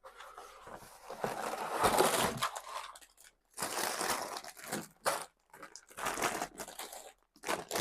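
Plastic LEGO parts bags crinkling and rustling as they are handled, in several irregular spells with short pauses between.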